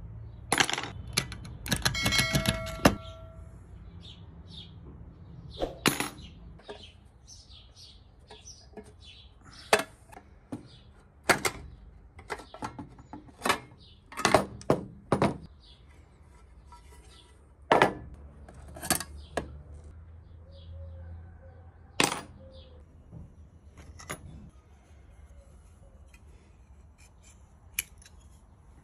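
Metal parts of a PT-1 kerosene stove clinking and tapping as they are handled and fitted: the sheet-steel case, its wire handle and pliers. In the first few seconds there is a dense burst of clinks with a short metallic ring, then separate clicks and taps through the rest.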